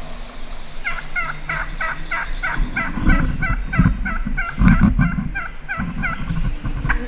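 A long run of about twenty turkey yelps, roughly four a second, starting about a second in and stopping near the end. Low rumbling bumps come underneath around the middle.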